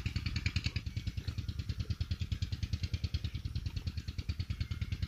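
An engine idling, with a steady, rapid, even beat and a low rumble under a clattering top.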